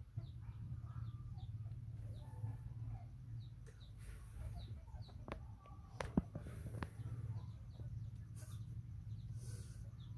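Chickens clucking and peeping in the background over a steady low hum, with a few sharp clicks near the middle.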